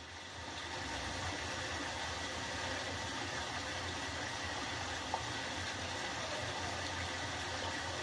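Steady splashing of water falling from pipe outlets into fish tanks, the flow driven by a washing-machine drain pump used as an aerator.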